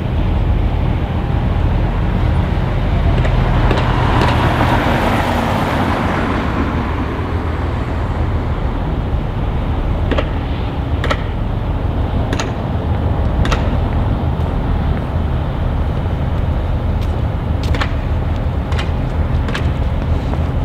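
Steady low engine rumble, with a swell of rushing noise that rises and fades around four to six seconds in, and a scatter of sharp clicks in the second half.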